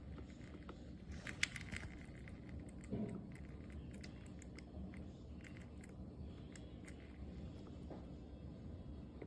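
Gevi 4-cup drip coffee maker brewing: irregular crackles and pops over a low steady hum, with a sharp click about a second and a half in.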